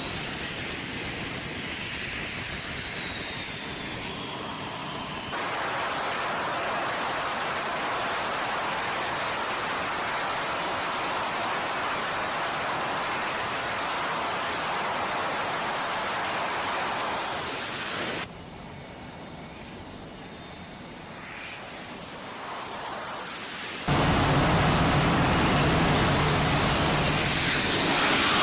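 Jet aircraft engines: a steady rushing roar with a thin turbine whine rising and falling, in sections that switch abruptly. It grows louder and deeper for the last few seconds.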